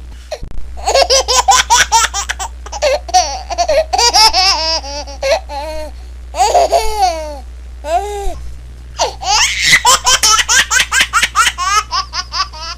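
Baby laughing in quick runs of high-pitched giggles, several pulses a second, with a pause and a few longer rising-and-falling squeals near the middle before the giggling picks up again.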